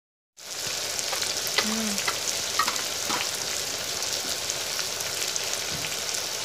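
Duck meat, potatoes and onions sizzling in hot oil in an iron karahi: a steady frying hiss with scattered small pops and crackles, starting after a split second of silence. This is the dry-frying stage, before turmeric and the other spices go in.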